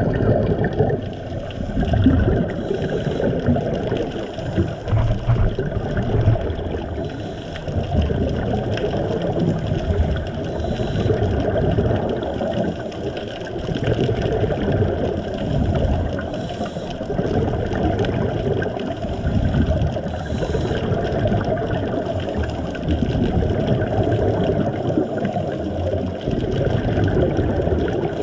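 Underwater ambient noise picked up by a camera in a waterproof housing: a steady low rushing water sound that swells and ebbs every few seconds.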